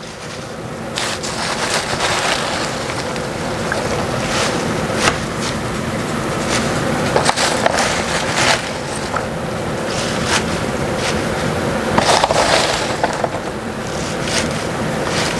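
Fresh baby spinach leaves rustling as handfuls are dropped into a skillet of mushrooms, with the clear plastic clamshell container crinkling as it is tipped and handled, over a steady hiss from the stovetop. The crackling is thickest about three quarters of the way through.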